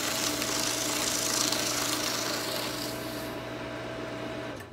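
Destroyit 3104 cross-cut shredder running with a steady motor hum as its cutters chew through a single sheet of paper. The rasping paper noise dies away about three seconds in, and the motor runs on briefly before shutting off near the end.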